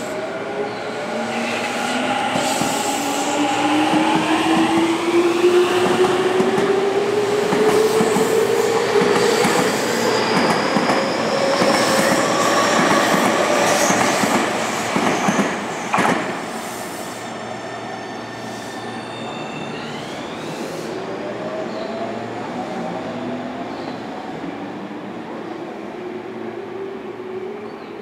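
Tokyu 5050-series electric train (4000-number set) pulling away from a station. Its inverter-driven traction motors whine steadily up in pitch as it accelerates, over the noise of the wheels on the rails. There is a sharp knock about sixteen seconds in; after it the sound drops back and more motor whine rises again as the last cars pass.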